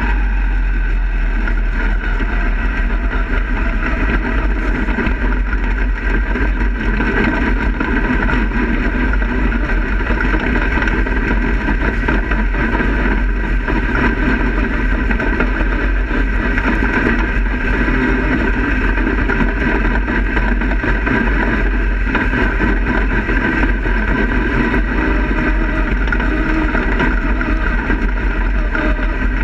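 Dirt-track race car's engine running steadily, heard from inside the cockpit with wind buffeting the onboard camera's microphone.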